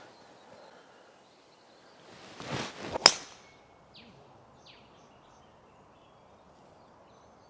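A golf swing: the whoosh of a 6-iron coming down, then one sharp crack as it strikes the ball about three seconds in.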